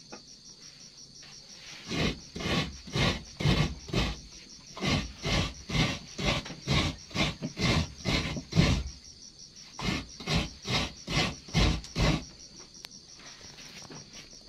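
Coconut half being grated by hand: rhythmic rasping strokes, about two or three a second, starting a couple of seconds in, pausing briefly around the middle and stopping near the end, over a steady high chirring of crickets.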